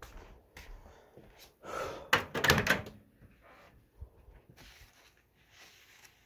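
A kitchen door being opened and shut, with a loud rattling clatter about two seconds in and a single sharp knock about four seconds in.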